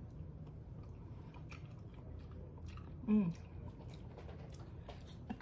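A person chewing and eating close to the microphone: soft, wet mouth clicks and smacks. About three seconds in comes a short hummed 'mm'.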